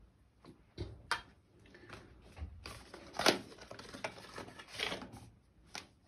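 Small clicks and knocks of a brush being stirred in a ceramic dish of glue solution and laid down in it, with rustling handling in the middle and one sharp click about three seconds in.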